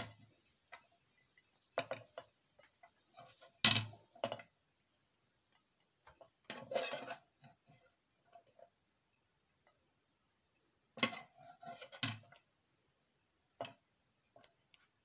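Metal spatula scraping and knocking against a metal frying pan as noodles are lifted out onto a plate, in scattered clatters with quiet gaps between. A faint sizzle from the hot pan dies away in the first few seconds.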